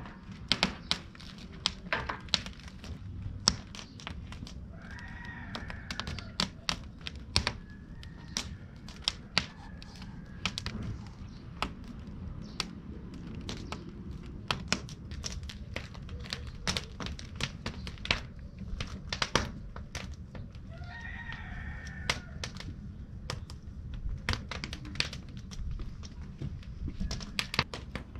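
A rooster crows twice, about five seconds in and again about twenty-one seconds in. Underneath runs an irregular stream of sharp clicks and crackles over a steady low rumble.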